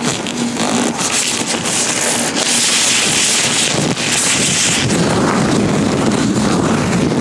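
Latex-gloved hands rubbing and gripping right against the microphone: a loud, continuous rustling hiss that turns brighter in the middle and fuller and lower near the end.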